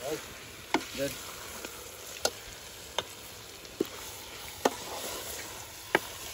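A metal spoon stirring a thick curry in a steel pot over a wood fire, clinking sharply against the pot about six times, roughly once a second, over a faint steady sizzle.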